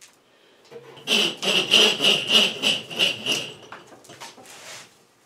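Rope being pulled hand over hand off a compressor's metal handle, a rasping rub about three times a second for a couple of seconds, followed by faint rustling.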